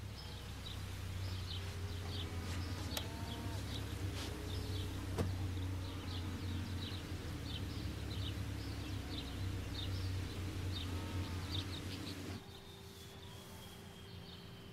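Rural outdoor ambience: birds chirping over and over, with a few lower curved calls, over a steady low hum. About twelve seconds in, it cuts off abruptly to a quieter indoor room tone.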